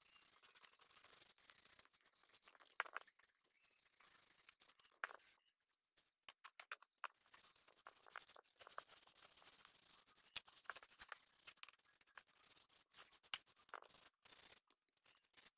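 Near silence, with faint scratchy rubbing and soft handling clicks as a cloth works polish into a carved wooden bowl.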